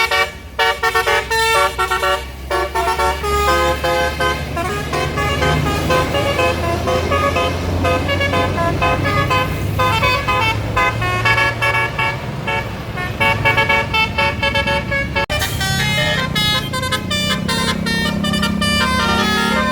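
Indonesian bus telolet musical horns, multi-trumpet air horns, playing a melody of quickly changing notes over the low running of a bus engine. The horn tune changes abruptly about fifteen seconds in.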